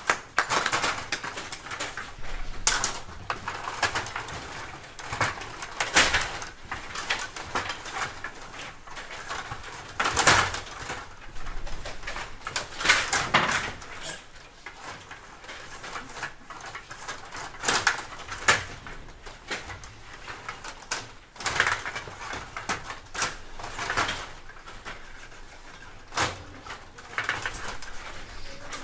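Stiga table hockey game in play: the rods sliding and spinning in the table, the plastic players clacking and the puck knocking against sticks and boards, in irregular clicks and rattles with a louder flurry every few seconds.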